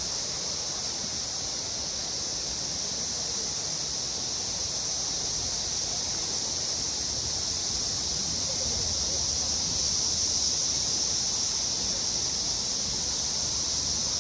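Steady, shrill chorus of insects in the surrounding woods, a constant high-pitched drone that does not let up.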